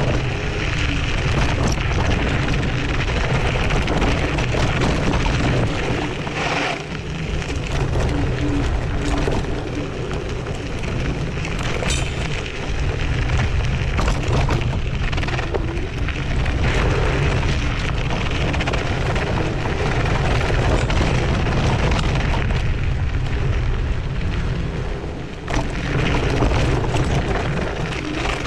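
Zero 10X electric scooter riding over loose slag gravel: a steady loud rumble from the knobby tyres and the scooter's frame, with many small knocks and rattles from stones. The noise eases briefly twice.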